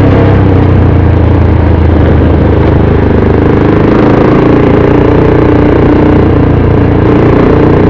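Motorcycle engine running steadily while riding, under a loud, steady rush of wind and road noise.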